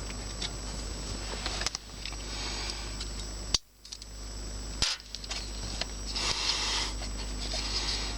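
Hands working at a blind-box toy's cardboard packaging: scattered clicks and taps, with about a second of rustling a little past six seconds in.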